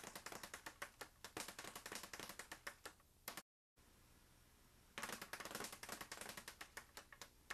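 Leather speed bag rattling rapidly against its wooden rebound board under fast punches. The rattle stops about three seconds in and picks up again about two seconds later: the break-off and restart of a broken-rhythm set.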